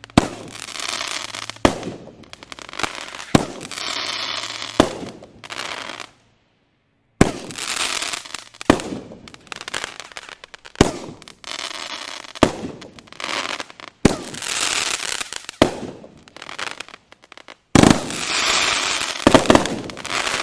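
Consumer fireworks going off: sharp reports about every one and a half seconds, each followed by a spray of crackling, with a brief dead silence about six seconds in.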